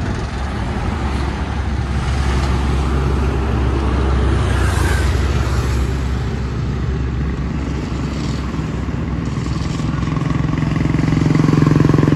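Heavy trucks' diesel engines and motorcycles passing close by on a highway: a steady traffic rumble. About ten seconds in, an engine drone grows louder as a truck approaches.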